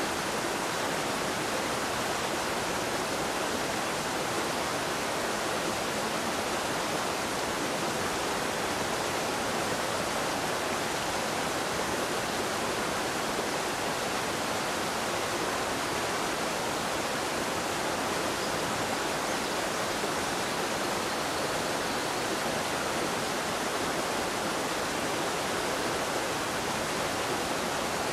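A steady, even hiss with no distinct events, unchanging in loudness throughout.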